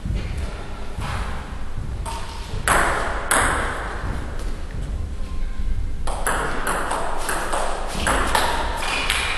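Table tennis ball clicking off the rackets and bouncing on the table: a few scattered taps at first, then a quick rally of hits in the second half.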